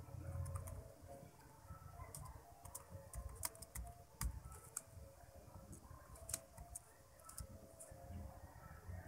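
Faint typing on a computer keyboard: irregular, scattered keystroke clicks.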